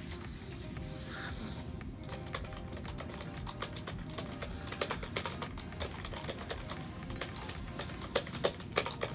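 Typing on a cheap no-name wireless touch keyboard: its plastic keys click in quick, uneven runs, starting about two seconds in and growing louder toward the end.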